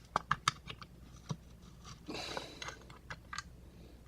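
Small sharp clicks and taps from a picked-open padlock being handled, several in quick succession in the first second and a few more later, with a brief scraping rustle about two seconds in.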